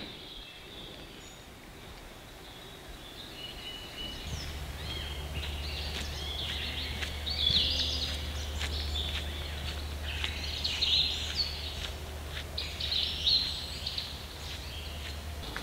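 Several songbirds singing in a forest, a mix of chirps and trills that grows busier a few seconds in. A steady low rumble sits underneath from about four seconds in.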